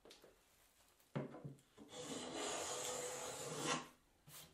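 Two light wooden knocks, then a hand molding plane taking one steady two-second shaving stroke along the edge of a wooden door frame, rounding over the molding profile. A short click near the end.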